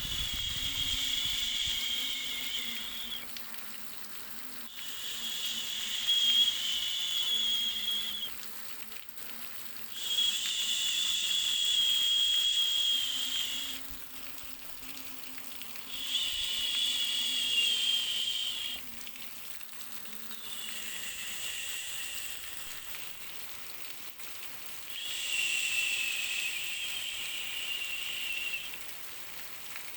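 Hissing white noise for soothing a baby, swelling in six long pulses of about three to four seconds with short quieter gaps between them. Each pulse carries a whistling edge.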